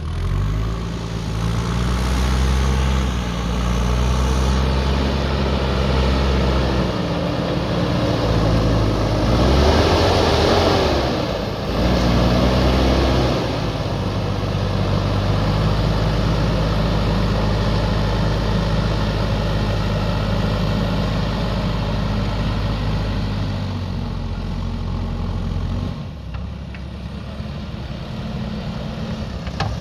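Diesel engine of a JCB backhoe loader working, its pitch rising and falling with a strong rev about ten seconds in, then running at a steadier speed for the rest.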